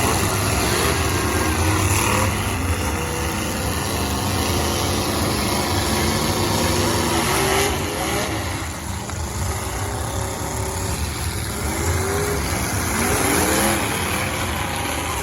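Several demolition derby cars' engines revving hard at once, their pitch rising and falling over a constant low rumble.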